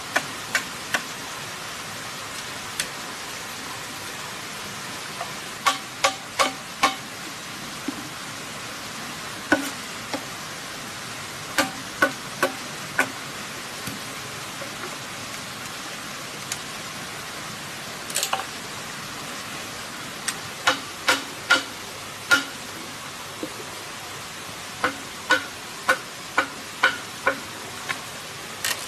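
Large chopping knife striking green bamboo, sharp knocks in quick runs of two to five as square holes are cut into a bamboo tube, over a steady background hiss.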